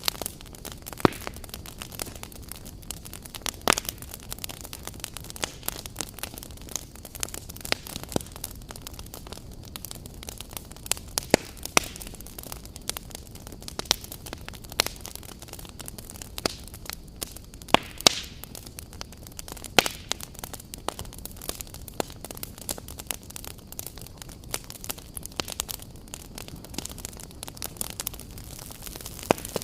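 Firewood campfire crackling: a steady hiss with frequent irregular sharp pops and snaps from the burning logs, the pops being the loudest sounds.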